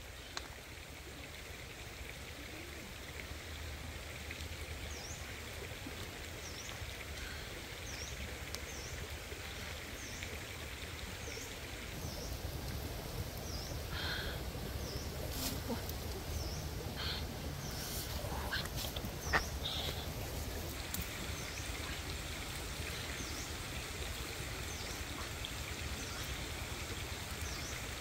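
Open wood fire burning under skewered octopus, a steady hiss with a few sharp crackles around the middle. A bird repeats a short high chirp every second or two.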